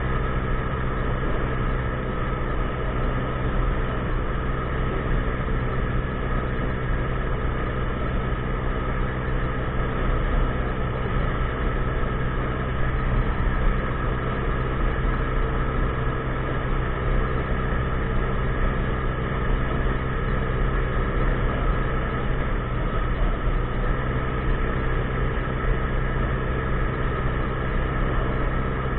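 50cc scooter engine running at a steady, unchanging pitch, with a constant rushing noise over it.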